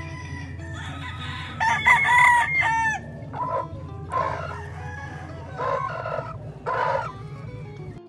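A gamefowl rooster crows loudly about two seconds in, followed by several shorter calls.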